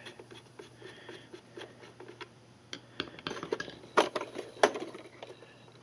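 Small clicks and taps of a screwdriver turning a screw in the plastic housing of a Zodiac MX6 pool cleaner, and of hands handling the plastic body, with a few sharper knocks around three and four seconds in.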